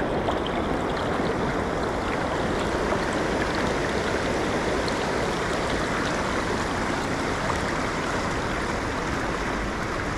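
The River Don rushing steadily over a weir, a constant roar of falling water with no change in level.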